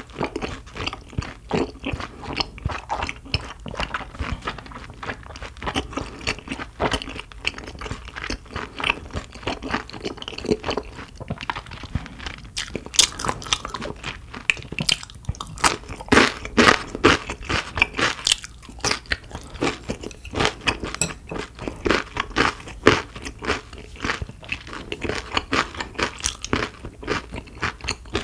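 Close-miked eating sounds: a person chewing and biting into crisp food, with many irregular crunches. The loudest, sharpest bites come in the middle stretch.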